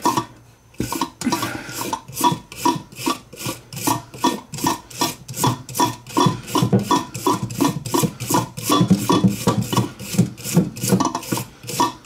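Small wire brush scraping the commutator of an old Klaxon horn's electric motor as the armature is turned by hand, cleaning the commutator so the motor will run. A quick, even run of scraping strokes, about three a second, starting about a second in.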